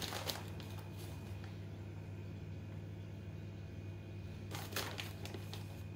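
Soft rustling of grated cheese being picked up and sprinkled by hand onto muffins in a muffin tray, once at the start and again about four and a half seconds in, over a steady low hum.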